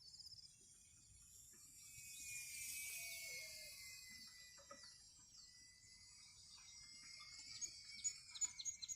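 Faint high whine of an ultra-micro RC warbird's electric motor, swelling as the plane passes about three seconds in and sliding slowly down in pitch, with small birds chirping and trilling.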